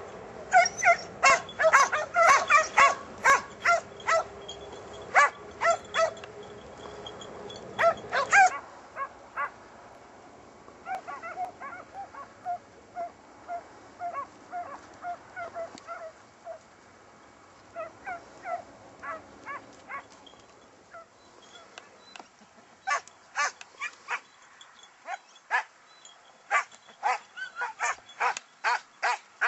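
Kopoy hare hounds baying in quick repeated barks. The barking is loud for the first eight seconds, fainter and sparser through the middle, and close and loud again for the last several seconds.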